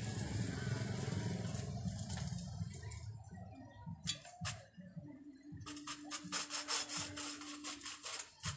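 Clicks and light metallic clinks of a bare stamped-steel speaker basket and magnet being handled, the quickest run of them in the second half. Under them, a low rumble of traffic for the first few seconds and a steady low hum later on.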